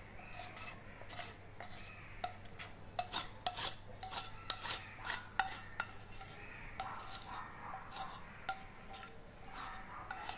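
Steel spoon scraping and clinking inside a steel pan as thick boiled tamarind paste is scraped out into a steel bowl: a run of quick, sharp metal scrapes and taps, busiest in the middle.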